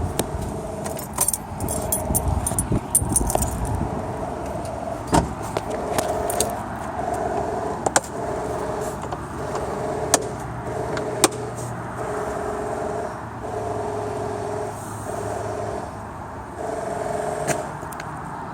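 A car engine running with an unidentified noise from underneath: a pulsing tone that comes and goes about once a second over a low hum, with scattered sharp metallic clicks. The owner has ruled out the flex plate and found no debris in the oil pan.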